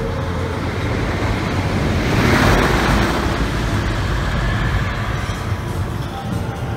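A roller coaster train rushing past on its track, with a rumbling rush that swells to its loudest about two to three seconds in and then fades.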